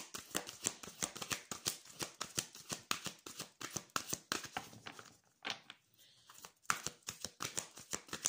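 An oracle card deck being shuffled by hand: a quick run of light card clicks and slaps, about five a second, that pauses briefly about five seconds in and then picks up again.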